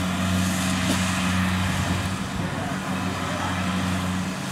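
Kubota DC-70 combine harvester's diesel engine running steadily under load, with a constant low hum and the rushing noise of its threshing machinery.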